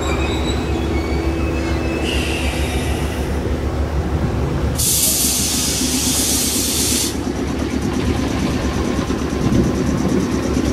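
JR West 105 series electric train pulling in and stopping: a faint high wheel squeal at first, then a loud hiss of air, about five seconds in and lasting about two seconds, as the train comes to rest, over the train's steady low hum.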